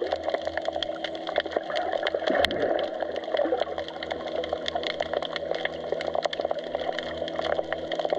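Underwater recording at the seabed: a dense, irregular crackle of small clicks over a steady low hum, with one brief whooshing sweep about two and a half seconds in.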